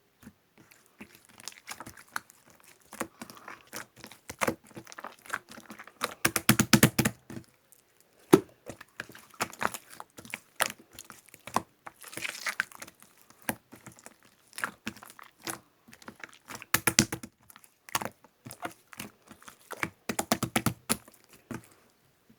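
Hands pressing, stretching and poking slime, giving irregular sticky clicks and crackling pops, with a few quick runs of rapid clicks.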